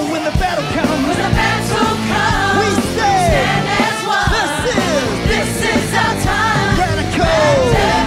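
Live gospel worship song: a group of singers with a backing band, voices sliding between notes over a steady drum beat.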